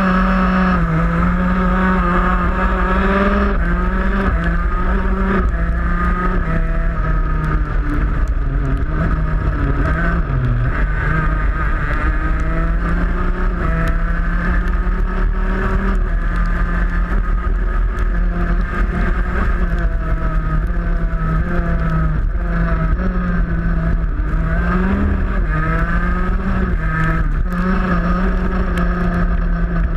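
125cc two-stroke shifter kart engine running hard at high revs, heard up close from on board. Its pitch climbs and drops in steps again and again as the driver shifts up and down through the gears.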